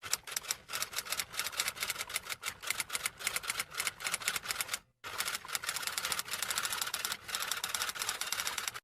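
Typing sound effect: rapid, even keystroke clicks, with a short break about five seconds in.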